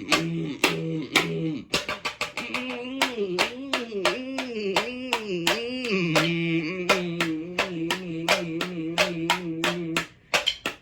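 A low voice humming long held notes, its pitch swooping up and down several times in the middle, over a run of sharp clicks or taps; the humming stops about ten seconds in.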